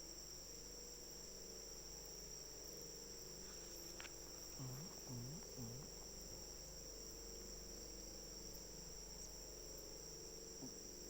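Insects chirring steadily in a high, continuous drone. Three short low sounds come close together a little before the middle.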